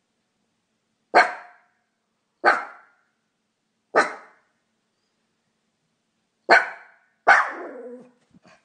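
Dog barking at the fox: five sharp single barks, the first three about a second and a half apart, then two close together, the last trailing off a little longer.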